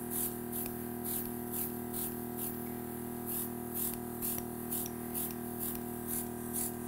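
Cake-decorating airbrush spraying food colouring in short hissing bursts, about two a second, over a steady low hum.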